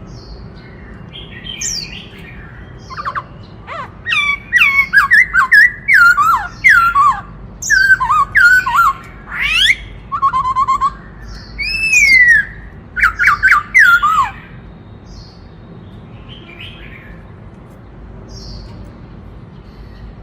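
Black-throated laughingthrush singing a loud burst of clear whistled notes, many sliding downward, with a few rising sweeps and a short rapid trill among them; the song starts about three seconds in and stops about two-thirds of the way through, leaving only faint scattered calls.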